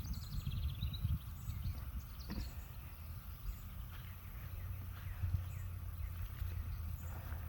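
Wind buffeting the microphone as a steady low rumble. A bird gives a quick falling trill in the first second, and a few faint rustles and clicks come now and then.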